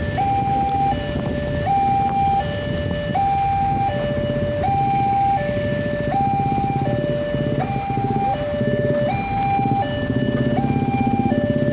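Railway level-crossing alarm sounding its fast-tempo two-tone electronic warning, a higher and a lower note alternating evenly, each held about three-quarters of a second. A low rumble of waiting road traffic runs underneath.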